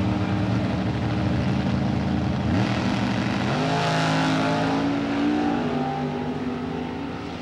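Two drag-race cars holding their engines at high revs on the starting line, then launching about two and a half seconds in. The engines rev up hard as the cars accelerate away down the strip, and the sound fades near the end.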